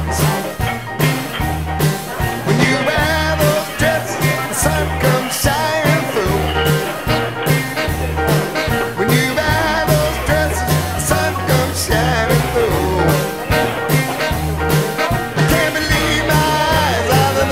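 Music with a steady beat, a walking bass line and a singing voice.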